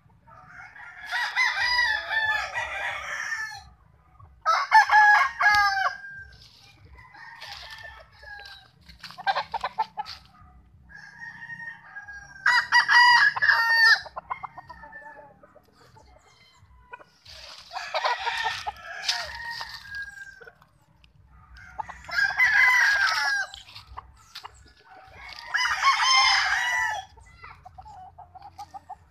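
Several gamefowl roosters crowing in turn: about six loud crows, each lasting a second or two, with fainter crows from farther off between them.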